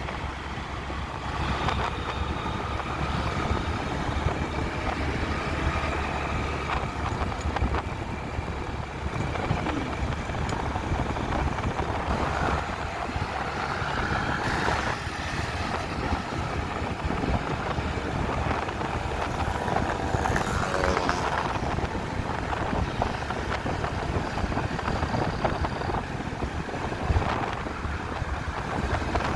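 Night street traffic heard from a moving motor scooter: a steady rumble of engines and tyres, with a few vehicles passing louder partway through, and wind on the microphone.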